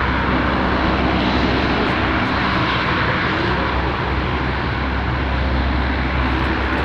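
Lockheed C-130H Hercules with its four Allison T56 turboprop engines running steadily as it rolls slowly along the runway. A loud, even roar carries a deep propeller drone.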